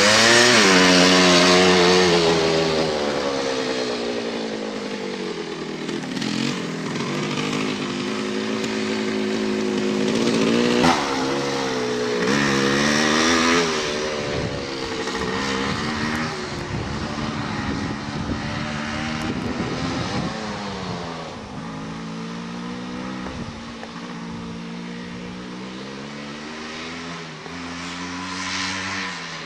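Dirt bike engine revving as it is ridden, its pitch rising and falling again and again with the throttle. It is loudest at the start as the bike passes close, then grows fainter as it rides away.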